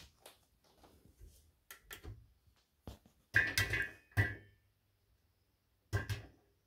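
Popcorn kernels popping inside a lidded stainless-steel electric skillet: a few irregular sharp pops, a loud cluster about halfway in that makes the metal lid ring briefly, then two more pops near the end.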